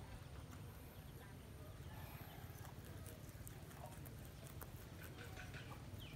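A rabbit chewing and tearing at grass close to the microphone: faint, quick crunching clicks over a low background rumble.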